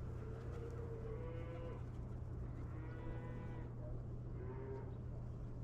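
Cattle mooing in the distance: three drawn-out moos, one after another, over a steady low background hum.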